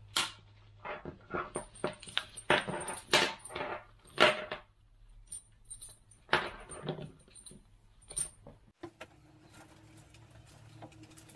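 Metal carabiners and D-rings of a resistance-band set clinking and rattling against each other and a tabletop as the bands are tipped out of their mesh bag and spread out, in a quick run of sharp knocks and jingles. The handling stops about nine seconds in, leaving a faint steady room hum.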